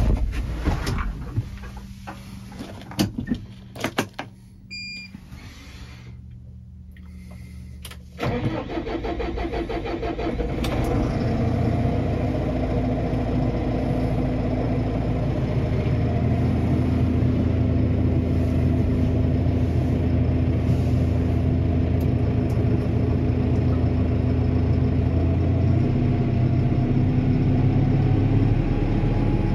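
Deutz-Fahr Agrotron 6165.4 tractor's diesel engine heard from inside the cab: a few clicks and a short beep, then about eight seconds in the engine starts and settles into a steady idle.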